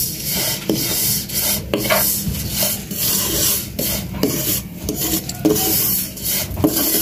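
Wooden spatula scraping and stirring dry vermicelli as it roasts in a little ghee in a non-stick kadai, a rasping stroke about twice a second.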